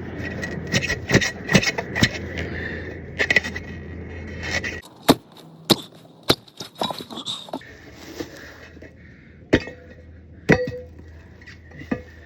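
Sharp metallic clinks and knocks, irregular and scattered, as a golf cart wheel and its loose hardware are handled while the tire is worked off the rim.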